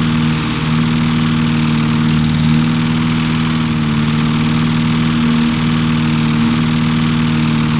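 Lawn mower's small engine running steadily.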